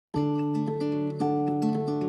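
Background music begins: plucked acoustic guitar picking a repeating pattern of notes over a steady bass.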